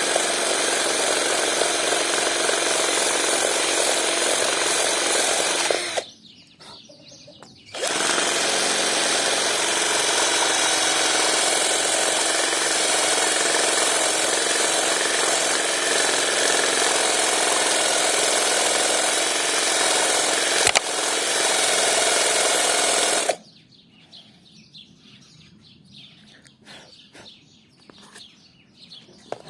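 Electric drill running a homemade circular sanding disc, a steady mechanical noise. It stops for about two seconds roughly six seconds in, starts again, and shuts off about three-quarters of the way through.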